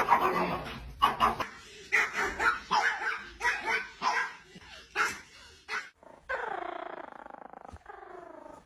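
A dog barking repeatedly, about two or three barks a second, then giving one long drawn-out call that falls in pitch near the end.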